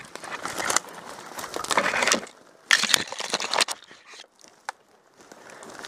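Rustling and crunching of brush and undergrowth as someone moves through it on foot, in three bursts, then quieter, with a single sharp snap a little before the end.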